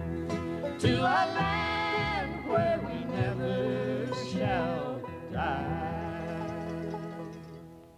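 Closing bars of a country gospel song: voices singing in harmony over string accompaniment, then the music fades out near the end.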